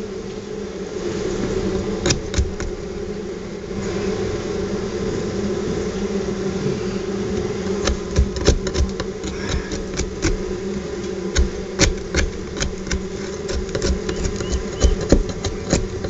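A colony of honeybees buzzing steadily, with many irregular clicks and knocks from about halfway through as hands work in the comb overhead.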